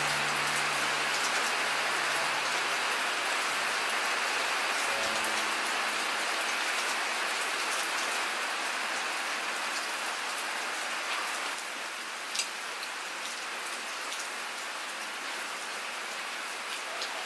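Steady rain falling on the ground and roof, a continuous even hiss. It drops slightly in level about two-thirds of the way through, and a few sharp ticks sound near the end.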